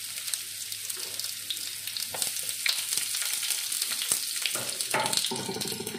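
Sliced onion sizzling in hot cooking oil in a frying pan, a steady crackle dotted with sharper pops.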